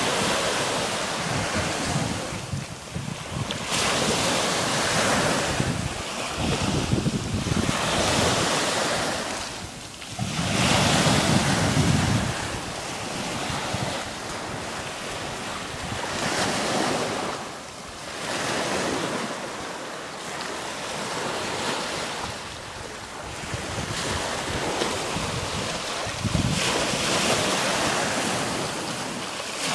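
Small waves breaking and washing up on a sandy beach, the surf swelling and fading every few seconds, with wind buffeting the microphone. The strongest low rumble comes about a third of the way in.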